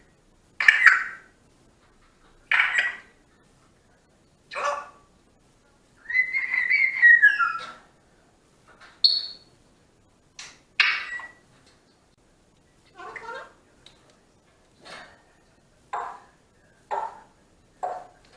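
African grey parrot vocalizing: a string of short noisy calls a second or two apart, with a longer whistled call falling in pitch about six seconds in and a brief high whistle just after.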